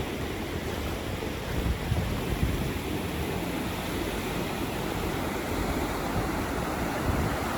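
Wind buffeting the microphone in uneven low gusts over a steady rush of water.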